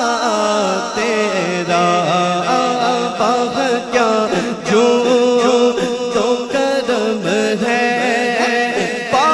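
A man reciting an Urdu naat in a chanting singing voice into a microphone, holding long notes that bend up and down.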